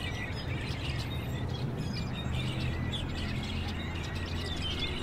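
A flock of small birds chirping in a tree, a dense chatter of short calls, over a steady low hum.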